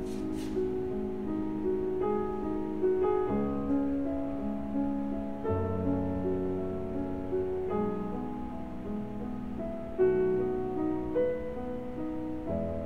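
Slow piano music, with held notes that overlap and change about once a second.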